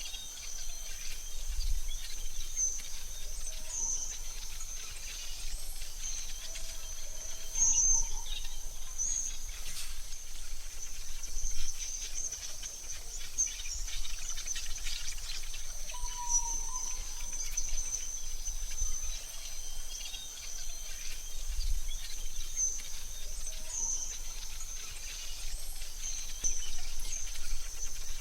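AI-generated forest ambience: a steady high-pitched insect trill with scattered short bird chirps over a low rumble.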